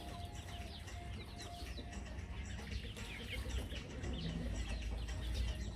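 A flock of young chickens peeping and clucking: many short, high, falling chirps, overlapping and repeated.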